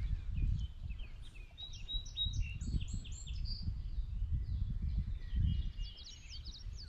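A songbird singing a rapid string of short, high chirps over a low, uneven outdoor rumble.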